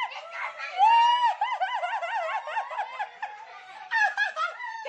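High-pitched laughter, a quick run of repeated 'ha-ha' pulses, loudest about a second in and tailing off in the second half.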